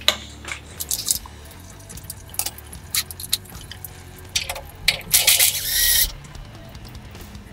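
Hand tools clicking and tapping against the metal of a diesel truck's DEF injector assembly as its mounting bolts are worked loose, with a short rasping burst a little past five seconds in.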